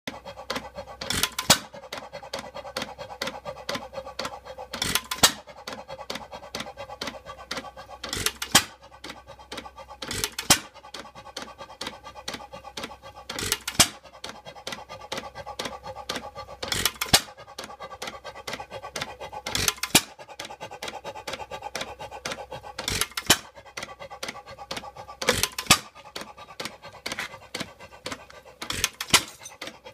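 1914 International Harvester 1 HP hit-and-miss stationary engine running, firing with a loud bang every two to four seconds and coasting between firings with a steady light clatter from its valve gear and flywheels.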